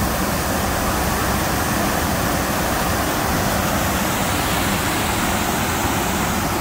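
Fast-moving water rushing steadily through a concrete outflow channel beneath a steel grate.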